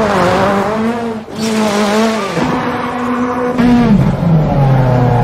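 Rally car engine revving hard and changing pitch as the car is driven sideways, with tyre squeal. The revs dip briefly about a second in and fall away near the end.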